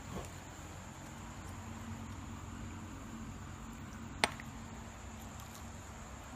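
Quiet room tone with a steady low hum and a thin high whine, broken by a single sharp click about four seconds in.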